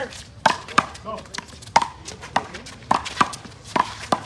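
One-wall handball rally: sharp smacks of the small rubber ball being struck by hand and hitting the wall, about one every half second, some in close pairs.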